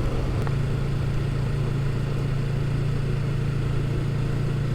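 Motorcycle engine running steadily at an even pitch, with a slight change in its note about half a second in.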